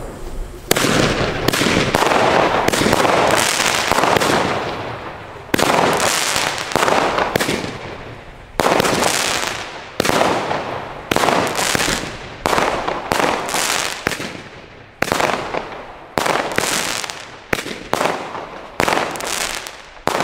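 Weco Red Star 4 firework battery firing shot after shot: about twenty sharp reports, each fading quickly. They come close together in the first few seconds, then about one a second until near the end.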